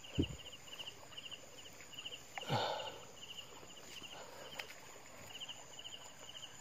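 Night insects, likely crickets, calling in a steady run of short high chirps, a couple each second. Over them come a brief low thump just after the start and a louder rustle and thump about two and a half seconds in, from the mesh bag being handled.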